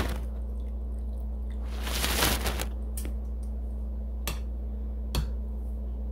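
Wool and silk roving squished down into a glass measuring cup of liquid dye, with a short wet rush about two seconds in and three sharp clicks of metal tongs against the glass. A steady low hum runs underneath.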